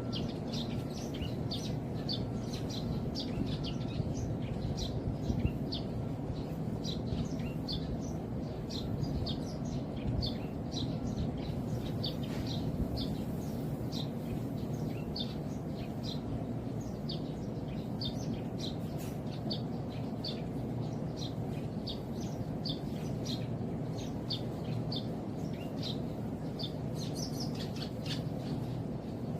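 Eurasian tree sparrows chirping, short high chirps several a second, over a steady low background rumble.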